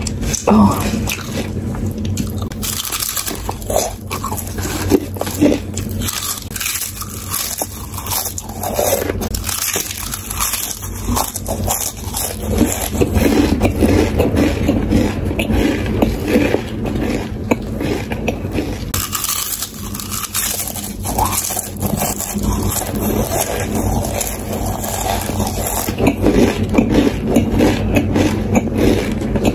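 Close-miked chewing of Lay's potato chips: a dense, irregular run of crisp crunches and crackles, louder in stretches.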